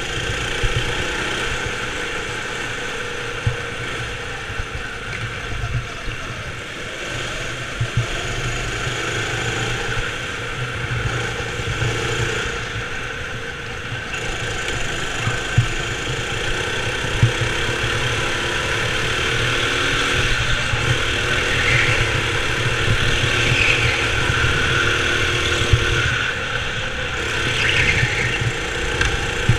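Go-kart running on an indoor track, heard from on board the kart, its motor pitch rising and falling with throttle through the corners. A few short sharp knocks stand out over the running sound.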